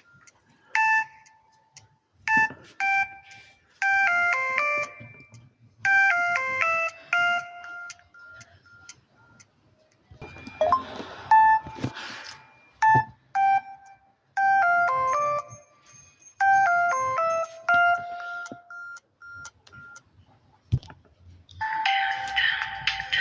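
Samsung phone ringtone melodies played in short phrases of clear, bell-like notes, with pauses between them. There is a patch of hiss about ten seconds in, and a fuller, denser passage of music starts near the end.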